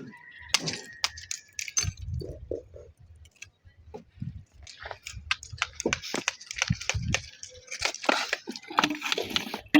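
Masonry work on natural stone cladding: irregular sharp clicks, taps and clinks of hard tools and stone, some in quick runs, with scraping and crunching in between.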